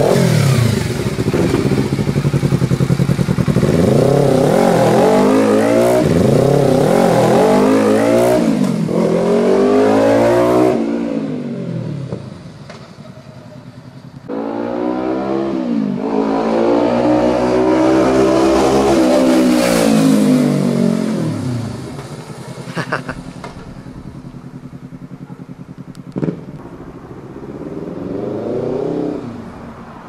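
Kawasaki Ninja 300 parallel-twin engine through an M4 aftermarket exhaust. It revs and accelerates through several gear changes, drops away, then comes back for a loud pass-by whose note rises and falls. After that it runs fainter in the distance, rising once more near the end.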